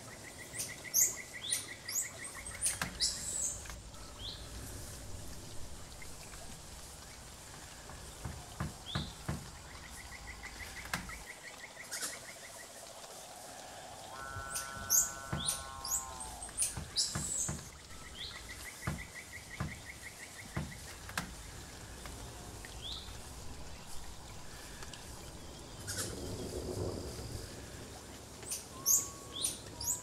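Forest ambience of birdsong: a buzzy trill that comes back about every eight seconds, many short high chirps, and one lower call that slides down in pitch about halfway through. Scattered sharp clicks and knocks sound throughout.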